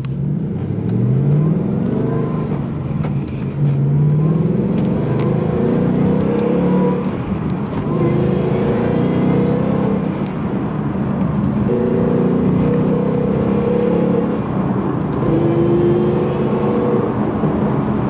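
Supercharged 2019 Ford Mustang GT's 5.0-litre V8, heard from inside the cabin, accelerating through the gears from first to fourth: the engine note climbs in pitch and drops back at each upshift.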